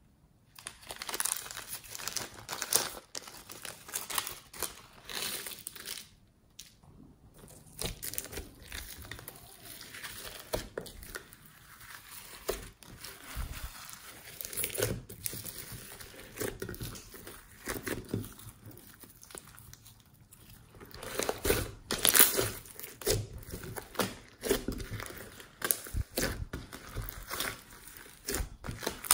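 Glossy slime mixed with foam beads being squished, stretched and folded by hand: an irregular sticky crackling and crinkling full of small pops and clicks, loudest in stretches a second or two long.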